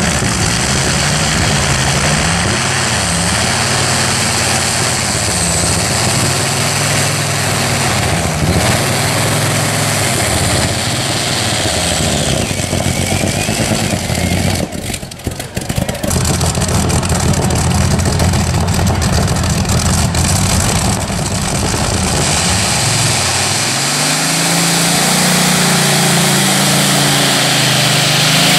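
Modified multi-engine pulling tractor running at full power as it drags the weight sled, its engine note wavering up and down, with a brief dip in level about halfway through.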